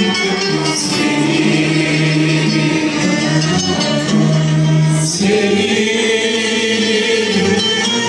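Turkish classical music ensemble of ud, kanun and violins with a mixed choir singing a song in makam hicaz, performed live.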